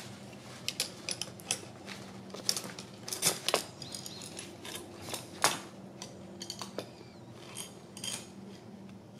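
Hand-held roller tube bender and new metal brake line clicking and clinking as the line is worked through the bender, in scattered sharp metallic clicks, the loudest a little past a third of the way in and just past halfway.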